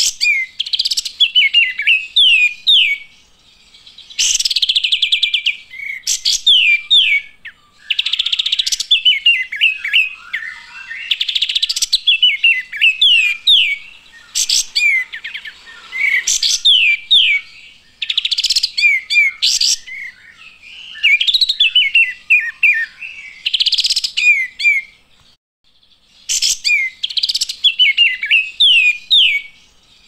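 Olive-winged bulbul singing: about ten phrases of rapid chattering and quick falling chirps, each lasting one to three seconds, with short pauses between them.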